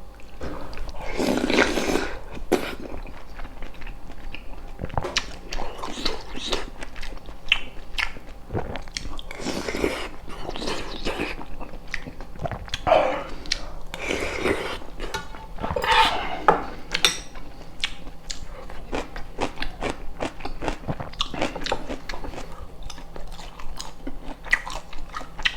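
A person chewing and crunching food close to the microphone, with frequent short bites and occasional clinks of cutlery on dishes.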